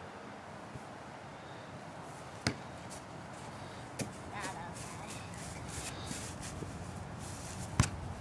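Sharp thuds of an American football being kicked and hitting the ground, three in all, the loudest near the end. A brief child's voice just after the second thud.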